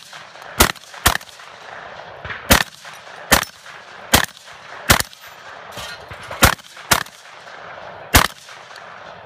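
Shotgun fired in a rapid string of about nine shots at uneven spacing, some in quick pairs about half a second apart, each shot trailed by echo.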